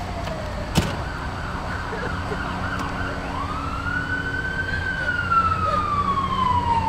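Police siren wailing, its pitch climbing slowly and then falling in a long glide. A single sharp click comes about a second in.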